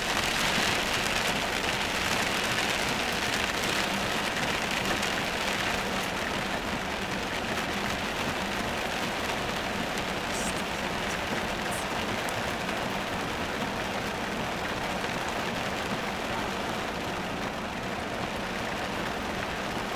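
Heavy rain falling on a moving car, a steady hiss that eases slightly toward the end.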